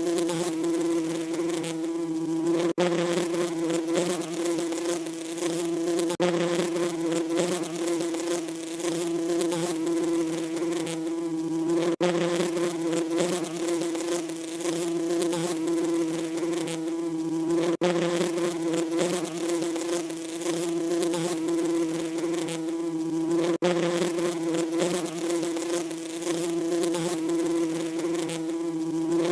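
Bees buzzing: a steady, pitched drone with an even upper hiss, broken by a brief dip every six seconds or so.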